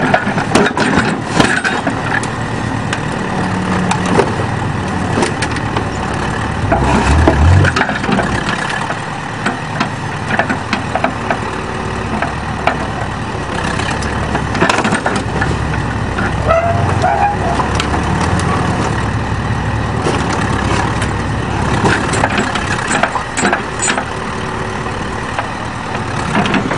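Backhoe's diesel engine running under load, with irregular crunching, scraping and banging of sheet metal as the bucket tears into a van.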